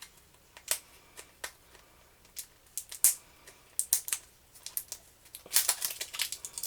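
Toy packaging being handled and opened by hand: irregular light clicks and crinkles, getting busier near the end.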